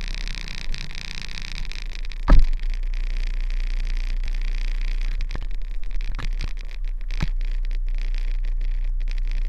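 Kenworth truck's diesel engine idling with a steady low hum. A sharp knock comes about two seconds in, and a few lighter knocks follow later.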